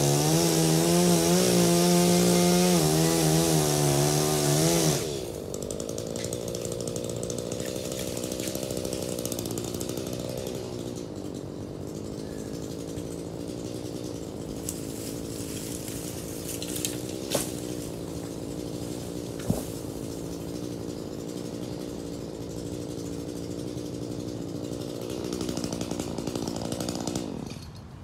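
Gas chainsaw cutting up a crepe myrtle: loud and at full throttle for about the first five seconds, then running more quietly and steadily, with a couple of sharp cracks in the middle, before it shuts off near the end.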